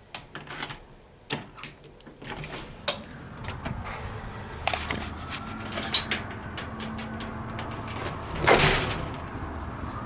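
A front door being unlocked and opened: a run of clicks and knocks from the lock and handle, then a louder clatter about eight seconds in. Over the last few seconds a faint siren rises slowly in pitch, very low.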